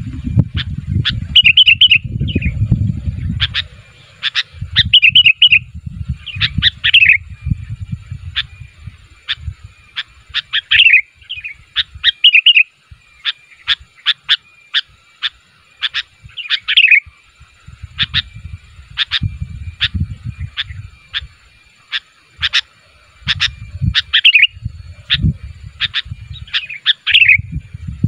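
Sooty-headed bulbul calling over and over: short sharp chirps mixed with quick bubbling warbled phrases, a note or phrase every second or so.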